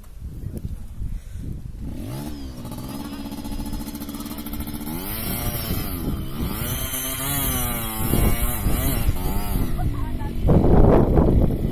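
Trail motorcycle engine revving under load, its pitch rising and falling again and again as the bike struggles up a steep climb. About ten seconds in, a louder, rough noise takes over.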